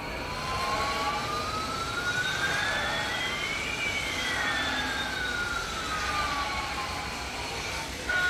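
Toy airliner's electronic sound effect played through its small speaker: a whooshing whine with two pitches sweeping in opposite directions, one rising and one falling, crossing about halfway through and parting again over about eight seconds.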